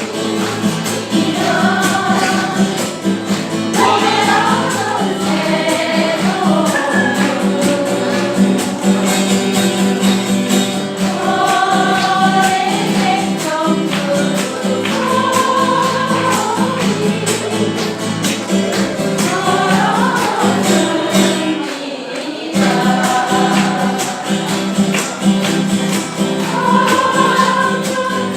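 Live music from a small ensemble: a choir-like melody line over steady sustained chords, pausing briefly about 22 seconds in.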